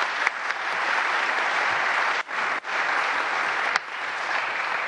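Audience applauding, steady clapping from many people.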